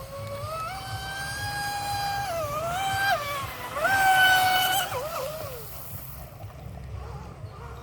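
Brushless electric motor of a 65 cm RC speedboat on a 6S LiPo, whining as the throttle is worked: the pitch steps up and down several times, peaks about four seconds in, then drops away about five seconds in.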